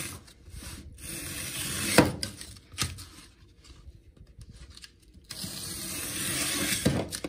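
OLFA 25 mm snap-off utility knife slicing along corrugated cardboard: two long drawn cuts with a rasping hiss, starting about a second in and about five seconds in. Each ends in a sharp knock.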